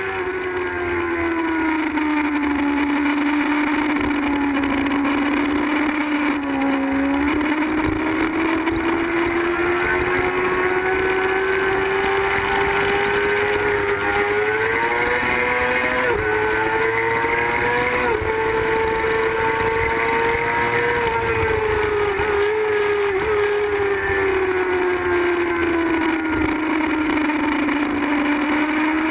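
Onboard sound of a sportbike's engine pulling hard on a racetrack, its pitch rising and falling as the rider accelerates and slows for corners, with a few abrupt jumps in pitch around the middle like quick gear changes, over steady wind rush.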